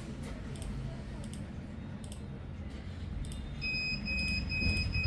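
Computer mouse clicking as characters are entered on an NVR's on-screen keyboard, a click every half second or so. Over the last second and a half come four short, high electronic beeps in a row.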